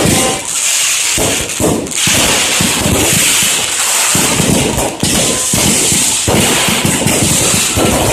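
Aerial fireworks going off in a dense barrage: rapid crackling and popping with heavier bangs mixed in, with no break.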